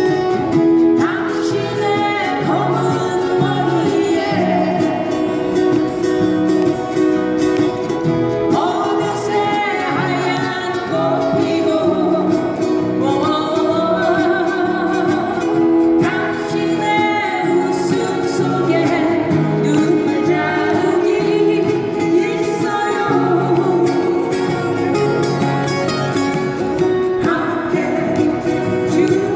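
Live acoustic guitar band: four acoustic guitars strumming a steady rhythm while a woman sings the lead into a microphone, heard through a small PA.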